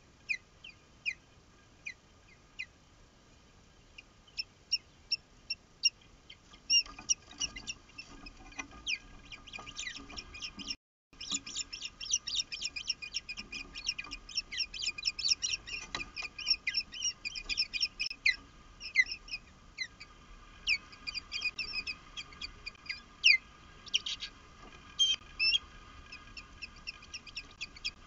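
Ospreys calling: sharp, high whistled chirps, a few at a time at first, building into a fast, insistent run of calls about a third of the way in, then thinning out again. It is alarm and defence calling as a strange osprey comes down onto the nest.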